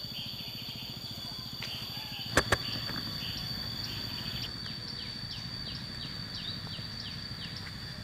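Tropical forest ambience: insects keep up a steady high-pitched drone, and short falling chirps repeat about twice a second in the second half. Two sharp clicks come close together about two and a half seconds in.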